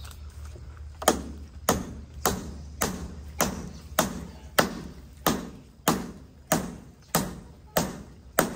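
Heavy kitchen blows in a steady rhythm, about thirteen strikes beginning about a second in, each with a short dull ring, as food is worked on a block.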